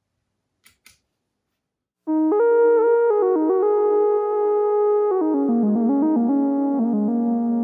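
Two faint clicks, then about two seconds in a single-note synthesizer lead (a Model D) starts playing a slow melody of sustained notes, each note held before stepping to the next, with a brief pitch bend partway through.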